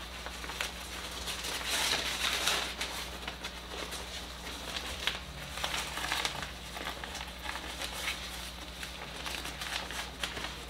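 Nylon softbox diffuser fabric rustling and crinkling in irregular scratchy bursts as it is handled and pressed into place along its Velcro edges.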